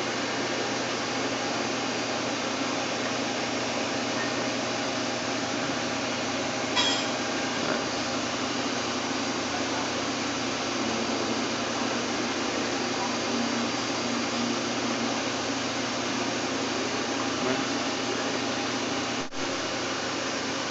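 Daewoo DMV 650 CNC vertical machining center running with a steady mechanical noise, with a short click about seven seconds in.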